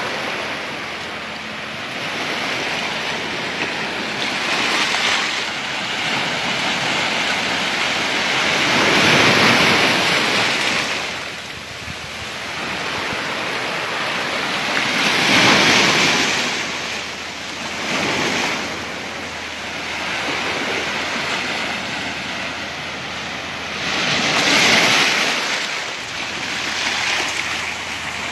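Sea surf washing onto the shore: a steady rush of breaking water that swells louder three times, with wind buffeting the microphone.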